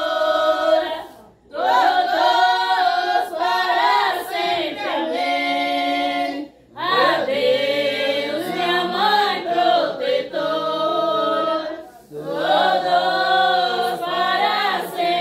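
Women singing together without instruments: a bendito, a Brazilian folk Catholic hymn to Our Lady of Candeias. They sing long, held phrases separated by short breaks, with three breaks in all.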